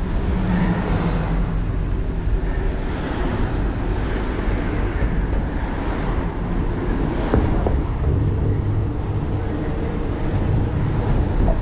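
Steady wind rushing over an action camera's microphone on a moving bicycle, with no clear breaks or single events.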